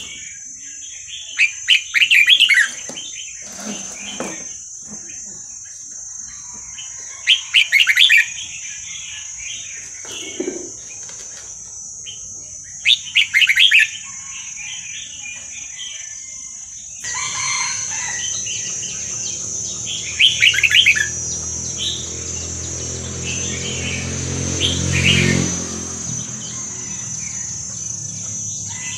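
Red-whiskered bulbul singing short, bright phrases of about a second, five times, several seconds apart, over a steady high-pitched drone. Past the middle a low engine hum sets in suddenly, swells near the end, then eases.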